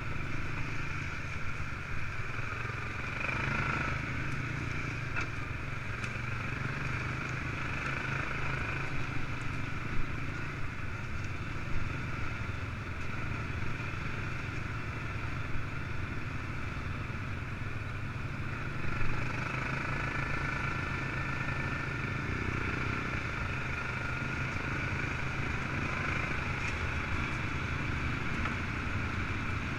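Quad bike (ATV) engine running steadily while riding at an even pace, with a few short sharp knocks.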